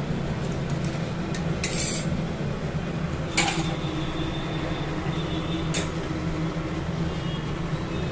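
Kitchen jars and utensils clinking and clattering a few times on a countertop, over a steady low hum.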